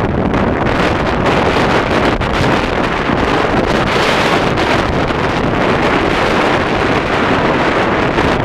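Gale-force winter monsoon wind buffeting the microphone, loud and continuous, with rough surf breaking on the rocky shore underneath.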